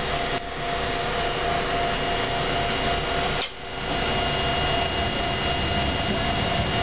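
Interior running noise of an ex-Meitetsu 770-series tram rounding a curve on street track: a steady mechanical hum with a constant tone in it. The noise drops briefly about half a second in and again about three and a half seconds in.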